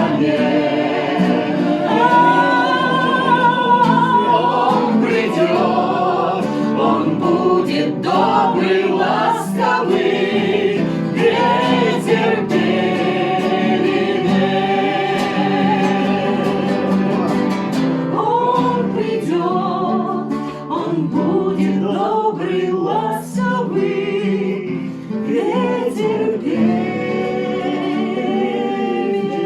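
A group of voices singing a melody together over acoustic guitar accompaniment, with no clear words.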